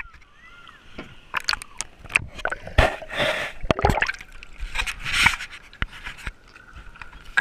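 Shallow water sloshing and splashing right at the camera, with a run of sharp knocks and scrapes as hands grip and move the camera's housing at the surface.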